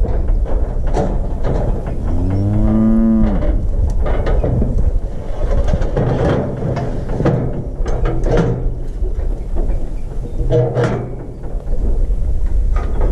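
One long moo from cattle about two seconds in, sliding down in pitch at its end, with scattered metal knocks and clanks from a steel cattle squeeze chute as a calf moves in it.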